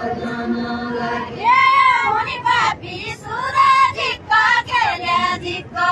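Group of women singing together in unison, in short repeated phrases.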